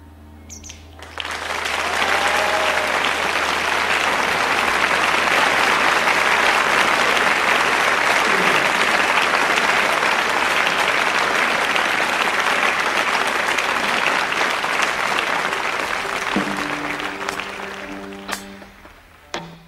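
Concert audience applauding, swelling in about a second in and fading near the end, where a few held notes and some sharp clicks come in.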